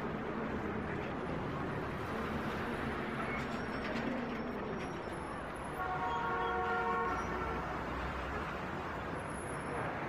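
Steady background noise like distant traffic, with a horn sounding a chord for about two seconds a little past halfway, the loudest thing heard.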